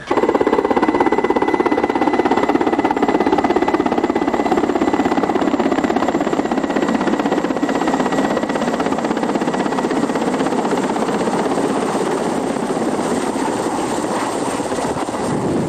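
Mi-8 helicopter close by, hovering low to land on snow: loud, steady rotor and turbine noise with a fast rotor chop. It starts abruptly and eases slightly near the end.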